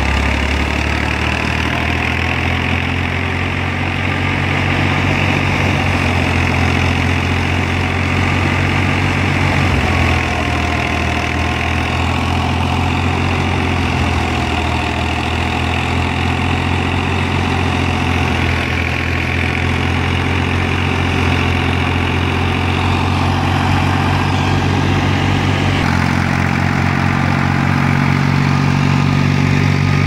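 Massey Ferguson 240 tractor's three-cylinder diesel engine running steadily under load, driving a wheat thresher through its PTO shaft, with the thresher's drum and fan whirring and hissing as straw is fed in. The engine note shifts slightly near the end.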